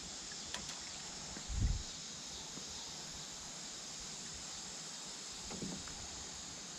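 Steady, high-pitched chorus of summer insects. A dull low thump comes about a second and a half in, and a fainter one near the end.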